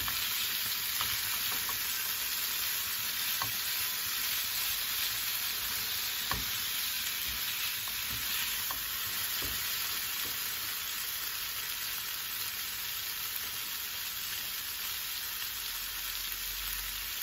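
Strips of firm tofu sizzling steadily as they fry in oil in a frying pan. A spatula scrapes and taps against the pan now and then in the first half, as the tofu is stirred.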